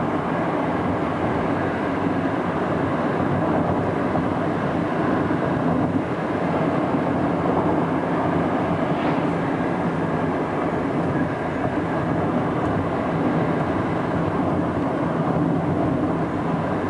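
Steady driving noise inside a moving car: engine and road rumble with a constant hiss.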